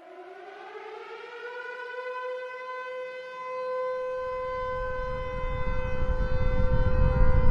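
Siren-like wail winding up in pitch and then holding one steady tone, growing louder, with a low rumble building beneath it from about four seconds in.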